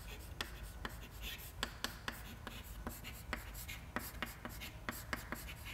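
Chalk writing on a chalkboard: faint, quick, uneven taps and short scratches as letters are written, several a second.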